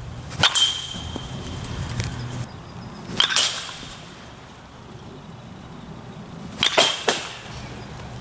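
Baseball bat striking pitched balls in batting practice: three sharp hits about three seconds apart, each with a short ringing ping, the last followed closely by a second crack.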